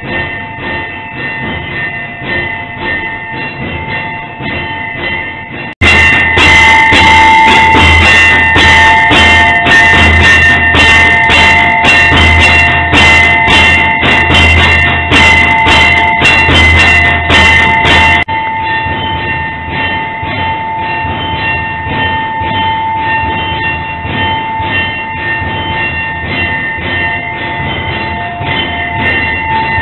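Electric temple aarti machine ringing bells and beating a drum in a fast, steady rhythm, with a constant clanging bell tone. It gets much louder, with a deep drum boom, from about six seconds in until about eighteen seconds.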